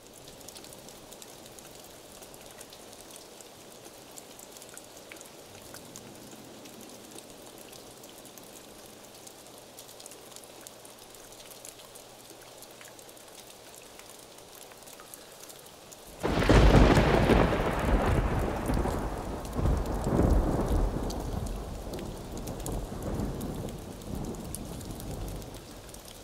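Steady rain falling. About two-thirds of the way through, a sudden loud thunderclap breaks out and rolls on in several swells of deep rumbling, slowly fading.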